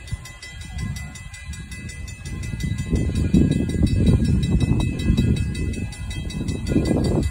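Frisco 1630, a 2-10-0 Decapod steam locomotive, moving in reverse: a low rumble that grows louder about three seconds in as it draws nearer.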